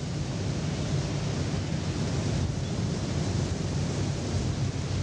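Wind on the microphone: a steady rushing noise with a low rumble.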